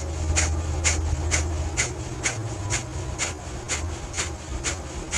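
Kapalbhati breathing: a person pushing sharp, forceful exhalations out through the nose in a steady rhythm of about two short hissing puffs a second.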